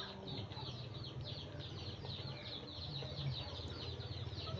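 Birds chirping: a steady run of short, high, down-sliding peeps, about four or five a second, over a low steady hum.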